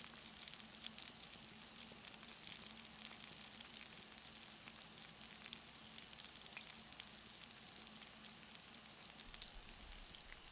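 Northern pike fillets frying in hot oil in a pan, a faint steady sizzle with many small crackles and pops.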